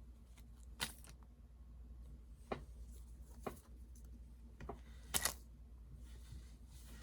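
Packaging and album being handled by hand: a few sharp clicks and brief rustles, about five in all, the loudest a short double rustle about five seconds in.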